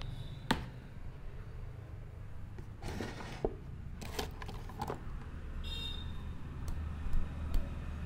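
Shop room tone: a steady low hum with a few sharp clicks and knocks and short rustling, the loudest a click about half a second in and two near the end.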